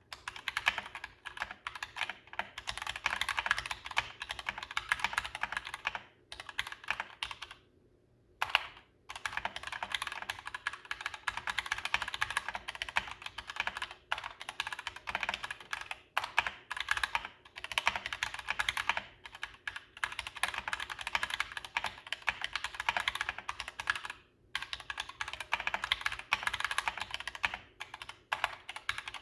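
Typing on a DeepCool KG722 65% mechanical keyboard with Gateron Red linear switches in an all-plastic case: rapid, continuous keystrokes with a few brief pauses, the longest about a second near eight seconds in.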